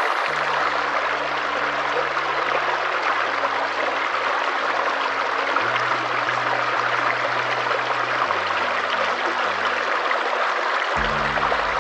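Steady rushing water like a stream, with soft held low musical notes beneath it that shift pitch every few seconds; fuller music comes back in near the end.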